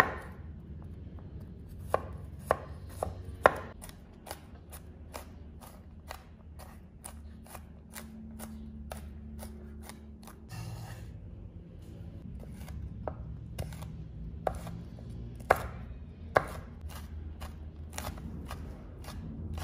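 Chef's knife mincing garlic cloves and then chopping red bird's eye chilies on a wooden cutting board: a steady run of knife taps on the board, about two a second, with a few louder knocks.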